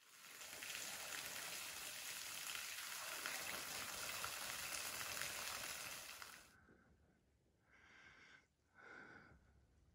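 Small waterfall spilling off a rock overhang, a steady splashing hiss that cuts off about six and a half seconds in. Then two short breaths through the mouth.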